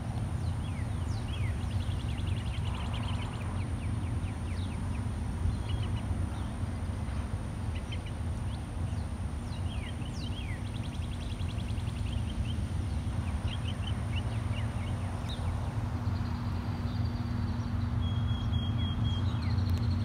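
Songbirds chirping and trilling, over the steady low rumble of a distant approaching freight train that slowly grows louder.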